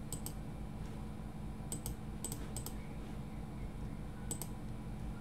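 Computer mouse button clicks: five sharp press-and-release pairs at uneven intervals, over a low steady hum.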